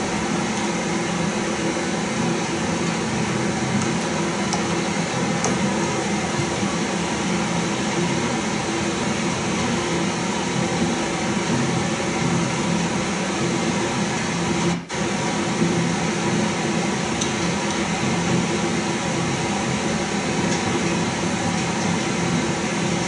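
Steady hum and hiss of background room noise, re-recorded off a TV's speaker, with a few faint high clicks. The level dips briefly about fifteen seconds in.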